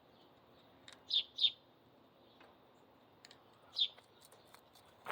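A bird chirping: three short, high chirps, two close together about a second in and one more near the end, with a few faint clicks between them.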